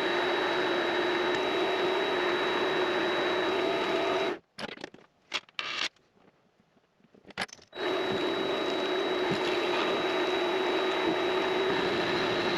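Vevor MX400 mini lathe running with a steady motor hum and whine. Near the middle it cuts out abruptly for about three seconds, leaving a few clicks, then comes back just as suddenly.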